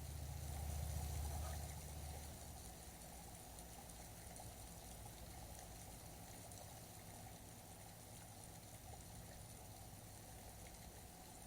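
Faint, steady outdoor background hiss at a pond. A low rumble, like wind buffeting the microphone, is loudest over the first two seconds and then fades.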